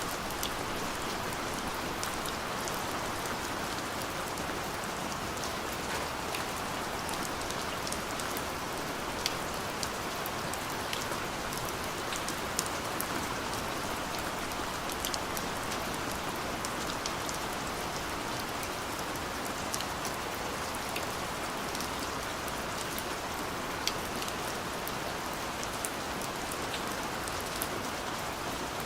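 Steady rain falling, a dense even hiss with many individual drops ticking sharply on a surface.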